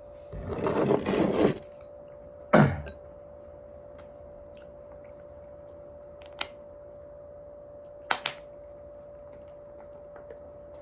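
Tableware handling at a meal: about a second of chopsticks scraping and clattering in a bowl, then one sharp knock as something is set down. Later come small plastic clicks, a single one and then a quick pair, as the red cap of a mayonnaise bottle is worked, all over a steady faint hum.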